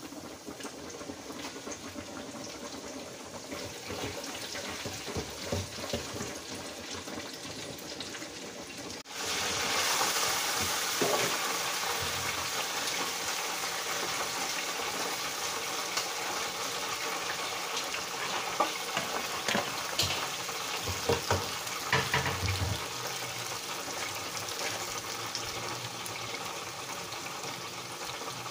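Hot oil sizzling in an electric deep fryer as a battered chicken breast fries. The sizzle gets suddenly louder about nine seconds in, and a few sharp knocks come later as the fry basket is handled.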